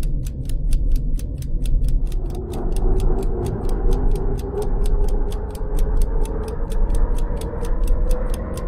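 Background music: a fast, steady ticking beat, about five ticks a second, over a deep bass and a held tone that slowly rises in pitch.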